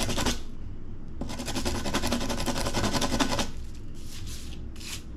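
Abrasive rasping on a steel trailer-hitch pin, working rust out of a pitted spot: a rapid scratchy rubbing that stops briefly just after the start, runs again for about two seconds, then comes in short bursts near the end.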